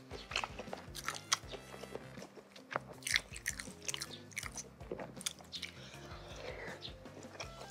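Close-miked chewing of cilok, chewy tapioca-flour balls in spicy broth, made up of many short, sharp mouth clicks and smacks, with soft background music under it.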